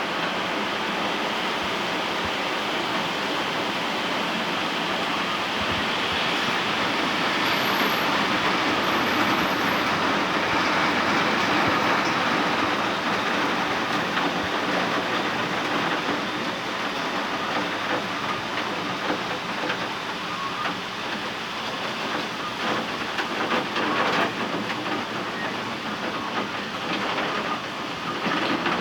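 Steady rain with wind, a dense even hiss, with more distinct drop ticks in the second half.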